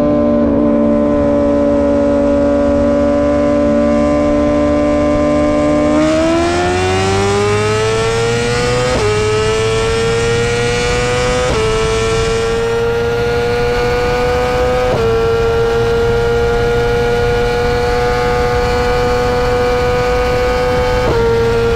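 Motorcycle engine holding a steady note, then accelerating hard with rising pitch, the note dropping at each upshift: three quick shifts, then a steadier pull with one more shift near the end.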